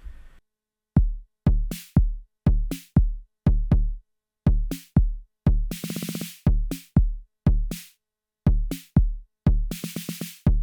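Arturia DrumBrute Impact analog drum machine playing a beat, starting about a second in: deep kick drum about twice a second with snare and hi-hat hits. Twice, around the middle and near the end, hits repeat in a fast roll, the roller/repeat function.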